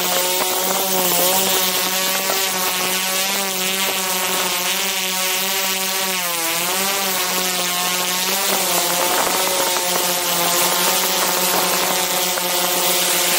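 Quadcopter drone's propellers and motors buzzing close to the microphone in flight, a steady hum over a strong hiss. The pitch wavers and dips briefly about six seconds in, then settles as the motors change speed.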